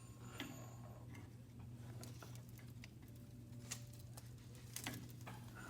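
Faint, scattered light clicks, a second or more apart, over a steady low hum.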